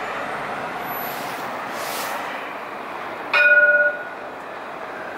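Alstom Citadis tram running steadily as it pulls away along the track, with a brief hiss about two seconds in. About three seconds in comes one loud bell-like chime lasting half a second: the tram's warning gong.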